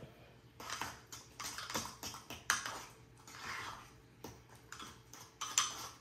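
Metal spoon stirring thick peanut sauce in a small ceramic bowl: irregular clinks and taps against the bowl with a few short scrapes.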